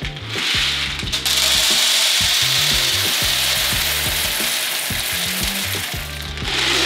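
Freshly roasted coffee beans pouring in a steady stream from a plastic container into a scale scoop, a continuous dry rattle. The pour is weighing out a 12-ounce portion. It starts just after the beginning and tails off near the end.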